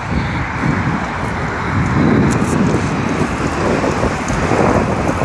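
Wind buffeting the microphone in a loud, uneven rumble while riding a bike along the road.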